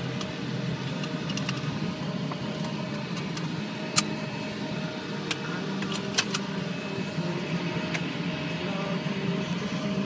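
Inside a car's cabin at low speed: steady engine and road hum, broken by a few sharp clicks, the loudest about four seconds in and another about two seconds later.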